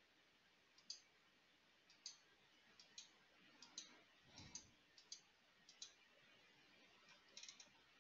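Faint computer mouse clicks, about one a second, with a quick run of three clicks near the end, as pages are clicked through.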